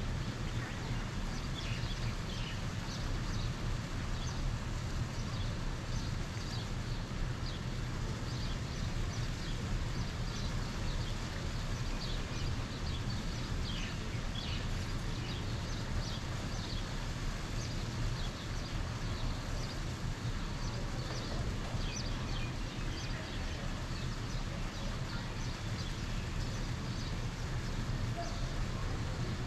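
Birds calling outdoors: many short, high chirps scattered throughout, over a steady low rumble.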